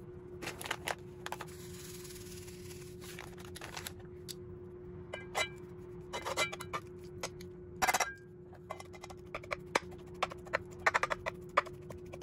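Kitchen utensils clinking and tapping during food preparation: scattered sharp taps, a few short ringing clinks of metal or glass, then quick, closely spaced tapping near the end, over a steady low hum.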